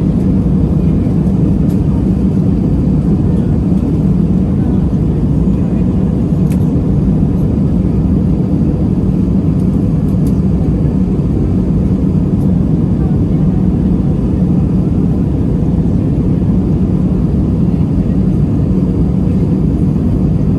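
Steady cabin noise inside an Airbus A320-200 on approach: the engines and airflow make a constant low drone with a steady hum, loud and unchanging.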